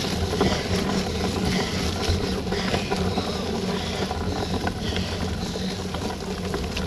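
Riding noise picked up by a camera on a mountain bike: steady wind rumble on the microphone, with tyres rolling over wet, muddy ground.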